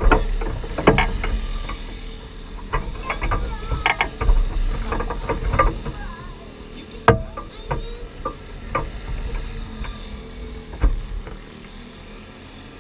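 Scattered clicks, knocks and rattles of hands working on a small race car's roll cage and seat harness, over a low steady rumble.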